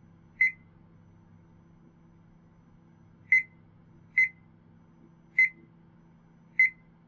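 Short, high-pitched electronic beeps from the Sony Vaio Jog Dial remote (PCGA-JR1), sounding five times at irregular intervals as its menu is stepped through and selections are made, over a faint steady hum.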